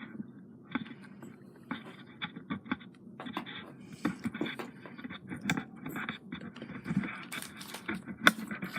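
Irregular small clicks, taps and scraping from hands handling small craft pieces and tools on a tabletop, busier toward the end.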